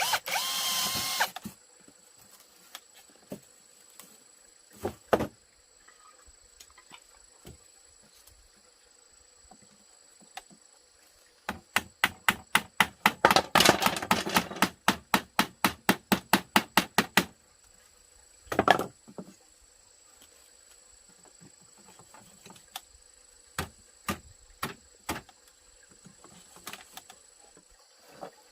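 Tool work on wood: a quick run of about five sharp knocks a second that lasts several seconds, with scattered clicks and a short burst either side.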